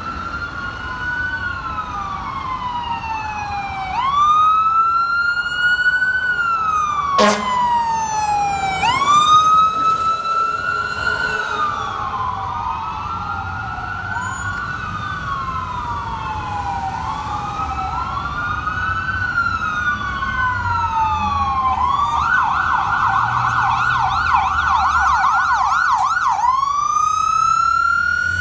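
Sirens of two fire trucks responding, a Spartan/Smeal rescue engine and ladder truck, wailing up and down about every four seconds with their sweeps overlapping. About 22 seconds in, one switches to a fast yelp for about four seconds, then goes back to the wail. Truck engine and traffic rumble run underneath.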